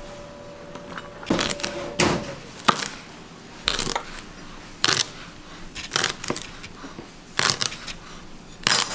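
Chef's knife chopping celery stalks on a plastic cutting board: a crisp knock each time the blade goes through and strikes the board, about once a second at an uneven pace.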